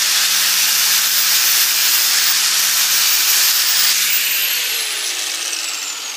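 Angle grinder with an 80-grit flap disc grinding down a MIG weld bead on a steel plate, a loud steady hiss of abrasive on metal. About four seconds in the grinder lifts off and its motor winds down with a falling whine.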